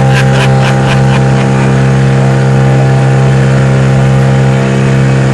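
An engine running at a steady speed with a constant low hum.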